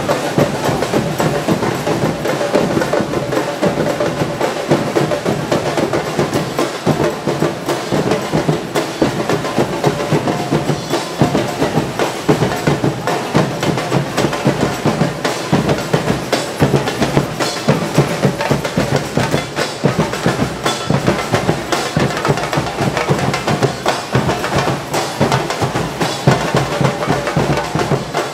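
A marching carnival percussion band playing: many drums, with bass drums and cymbals, beating a loud, steady, dense rhythm.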